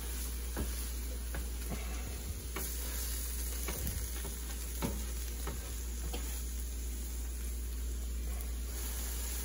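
Eggs and sausages sizzling on an electric griddle, with a plastic spatula scraping and tapping against the griddle surface several times in the first half as an omelette is pushed across it.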